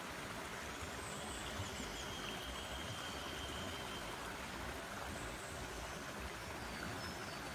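Forest stream flowing, a steady rush of water, with a few faint high chirps over it.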